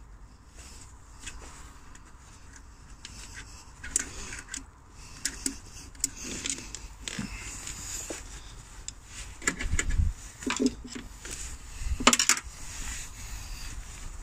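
Hand work on heater hoses and their clips in a car engine bay: scattered light clicks, knocks and rustles of plastic and metal parts being handled. Heavier knocks come about ten and twelve seconds in, the second the loudest.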